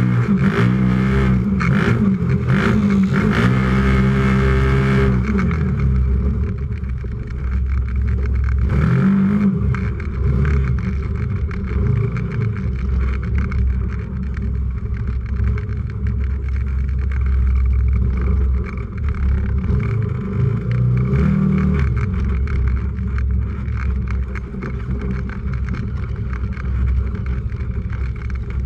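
UTV engine running hard under race load, heard from inside the cab, its pitch climbing and dropping repeatedly as the throttle is worked. Knocks and rattles over the first few seconds.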